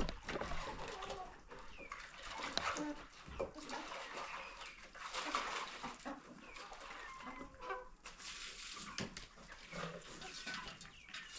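Chickens clucking, with a few scattered knocks.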